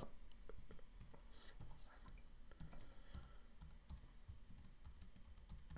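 Typing on a computer keyboard: faint, irregular keystroke clicks as an account name is entered.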